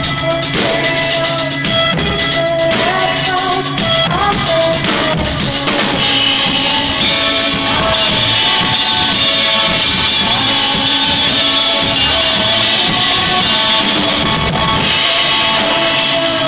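Live band playing a song: drum kit and guitar, loud and continuous.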